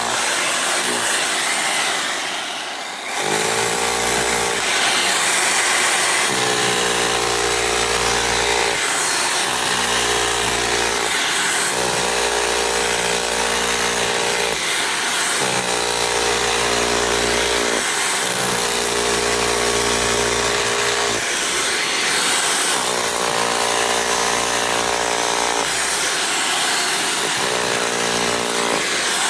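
Titan 1500W SDS rotary hammer breaking up concrete, hammering loudly. The motor's whine climbs at the start of each run and cuts out briefly between runs, in repeated bursts of a few seconds.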